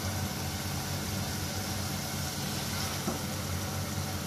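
Steady low hum with a hiss over it, as chicken and tomato paste cook softly in an aluminium pot on a gas stove; a light tap of the wooden spoon about three seconds in.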